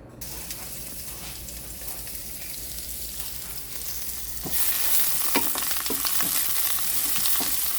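Onions sizzling as they sauté in hot olive oil in a cooking pot and are stirred. The sizzle gets louder about four and a half seconds in, with several sharp clicks of the stirring utensil.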